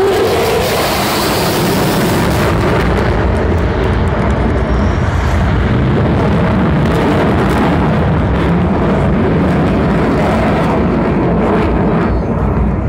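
F-16 fighter jet's engine roar as it flies past and heads away. The high hiss is strongest in the first two seconds or so, then eases while a deep rumble goes on.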